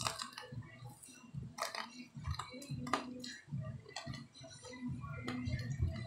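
A person biting and chewing fried chicken eaten by hand: wet, smacking mouth sounds with a few sharper clicks.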